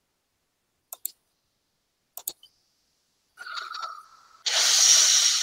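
Subscribe-button overlay sound effects: two mouse clicks about a second apart, a brief tone, then a louder hissing whoosh lasting over a second.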